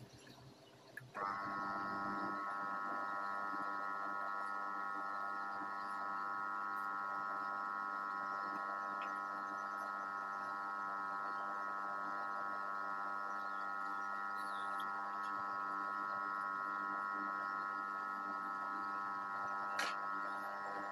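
Electric aquarium air pump switching on about a second in, then humming steadily as it feeds air into the tank. A single brief click comes near the end.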